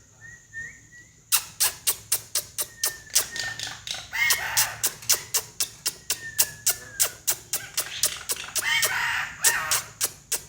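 A starling-family bird calling: a rapid run of sharp clicks, about four a second, starting about a second in, mixed with short whistled notes and two harsh squawks about four and nine seconds in.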